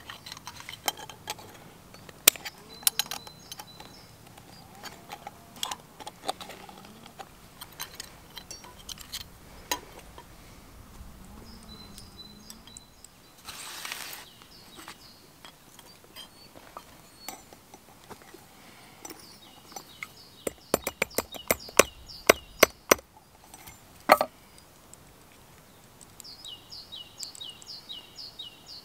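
Light metallic clinks and taps of hand tools on copper wire as it is bent and shaped cold, scattered at first, with a quick run of sharp taps about twenty seconds in.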